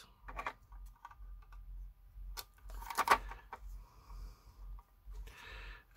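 Light clicks and taps of a circuit board being handled and set into a plastic enclosure, with a louder cluster of clicks about three seconds in.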